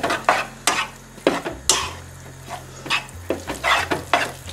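Wooden spatula stirring and tossing fettuccine in a non-stick frying pan, with short scraping knocks against the pan about twice a second.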